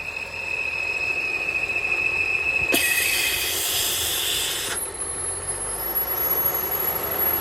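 A 3.0 TFSI V6 engine running with a steady high-pitched whistle from a failed membrane in the crankcase breather oil separator. About three seconds in, a loud hiss lasts roughly two seconds while the whistle fades out, and a thin, very high tone follows.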